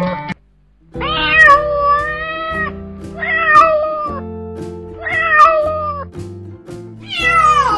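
A domestic cat meowing four times in long, drawn-out meows of a second or more each, the last one sliding steeply down in pitch, over background music.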